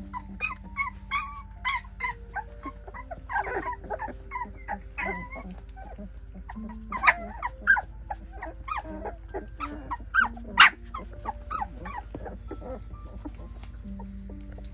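A litter of two-week-old standard poodle puppies whimpering and squealing in many short, high cries, with a few louder yelps about seven and ten seconds in.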